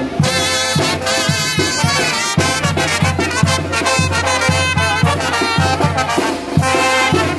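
Mexican brass banda playing: trumpets and trombones carry the tune over a steady beat from the sousaphone and bass drum.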